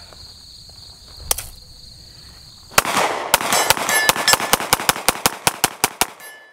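A magazine dropped onto gravel lands with a single sharp clack about a second in. Then a Glock 43X 9mm pistol fires a rapid string of about fifteen shots, roughly five a second, emptying a 15-round magazine.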